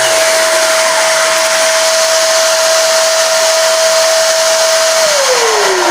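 Electric power sander running on a wooden guitar body at 120 grit, a loud steady whine over the sanding hiss; about five seconds in it is switched off and the whine falls as it winds down. A second motor winds down right at the start.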